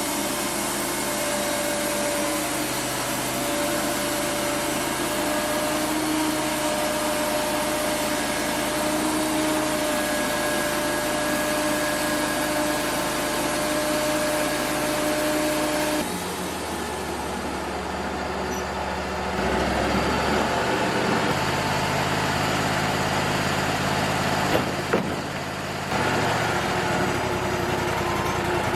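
Wood-Mizer LT35 portable band sawmill running steadily, its engine and blade giving a constant machine drone with steady tones. The sound shifts abruptly about halfway through, and a couple of sharp knocks come near the end.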